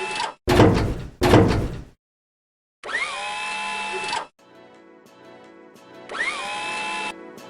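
A power drill whirs in three short bursts, each spinning up and then holding speed. Two loud heavy thunks come about half a second and a second in. Soft guitar background music fades in after about four seconds.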